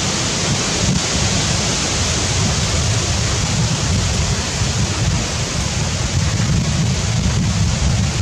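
Wind buffeting the microphone: a steady, loud rumble with a hiss over it.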